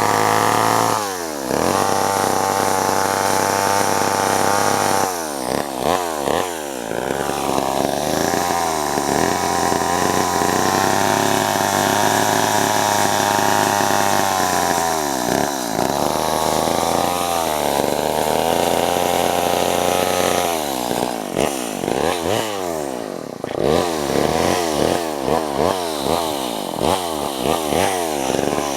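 Vintage Homelite chainsaw's two-stroke engine held at high revs for several seconds at a time, dropping back toward idle three times. Near the end the throttle is blipped repeatedly in quick short revs.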